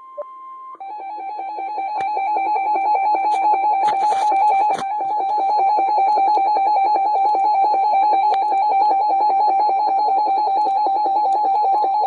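NOAA Weather Radio warning alert tone: a loud, steady electronic tone with a buzzy edge. It drops to a slightly lower pitch about a second in and grows louder over the next second or so, then holds. A short burst of noise comes about four seconds in.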